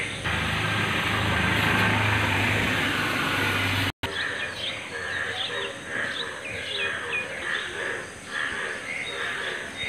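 A steady noise with a low hum for about four seconds, then a sudden break; after it, birds chirping in short, quick downward chirps, with other bird calls repeating through the rest.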